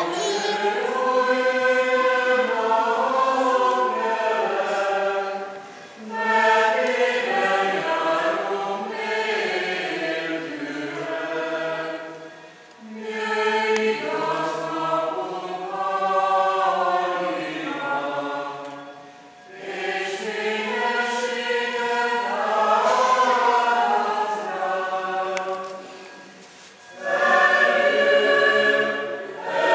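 A choir singing a slow song in phrases of about six seconds each, with short breaks between them.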